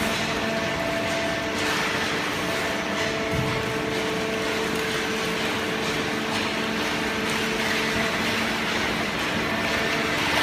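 Vertical hydraulic cardboard baler running, a steady machine hum and hiss with a few held tones from its motor and pump.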